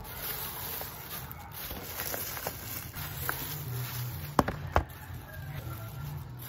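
A thin plastic carrier bag rustling and crinkling as it is handled and pulled off a takeaway box, with two sharp clicks a little over four seconds in.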